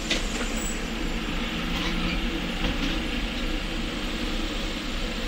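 Steady engine-like rumble and hiss of street background noise at a roadside food stall, with a few faint clicks about two to three seconds in.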